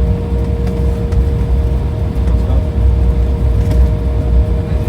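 Cabin noise of an Embraer 175 taxiing: a steady low rumble with a steady hum from its GE CF34 turbofan engines at taxi power.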